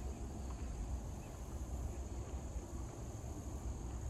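Wind buffeting the camera microphone as a steady, uneven low rumble, with a steady high-pitched hiss above it.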